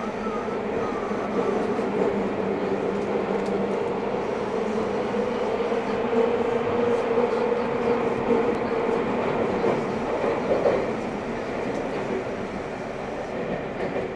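Seibu 6000 series renewal train running, heard from inside the car: steady rumble of the wheels with the hum and whine of its GTO-thyristor inverter and traction motors, getting quieter near the end.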